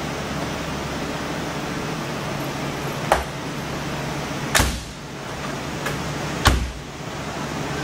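Steel cab door of a 1936 Chevrolet pickup shut three times, each a sharp thud, the second and third the loudest, over a steady background hum.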